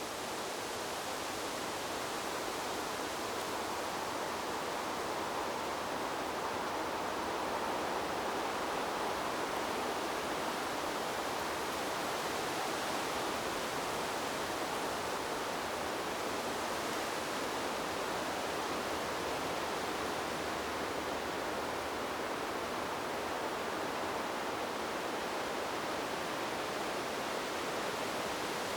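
Steady wind rushing through forest trees, an even whooshing rustle of leaves and branches that swells slightly in the first few seconds and then holds level.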